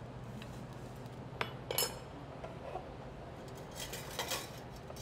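Metal spoon clinking against a small frying pan and a plate while jus is spooned out: a couple of sharp clinks about a second and a half in, then a quick run of clinks near four seconds.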